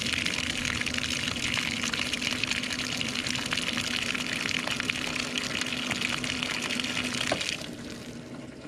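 Electric bilge pump running, its discharge stream splashing steadily from the hull outlet onto grass over a steady low hum. Near the end the pump shuts off with a click, and the splashing fades away.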